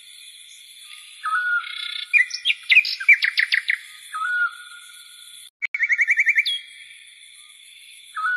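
Small birds chirping, with two bursts of fast repeated trilling notes and short single calls in between, over a steady high-pitched background hum.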